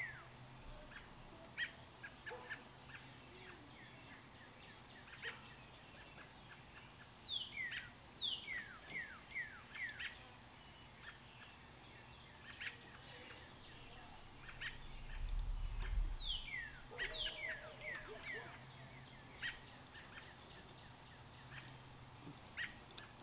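Birds chirping in repeated quick runs of falling notes, with scattered single chirps. A brief low rumble comes about two-thirds of the way through.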